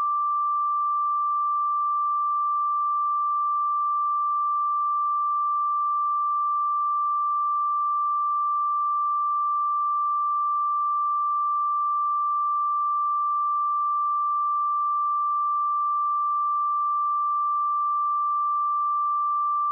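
A pure 1176 Hz sine-wave test tone, one steady unbroken pitch at a constant level.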